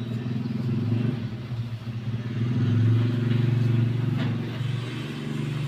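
A motor vehicle engine running steadily, its low hum swelling and drifting a little in pitch about halfway through, with a single short click near the end.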